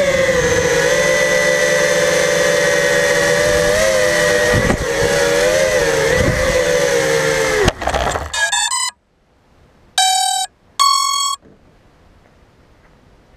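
Racing quadcopter's motors and propellers whining steadily, the pitch wavering with throttle, then a knock as it comes down on the tarmac and the motors stop. Soon after, two short electronic beeps, the second higher.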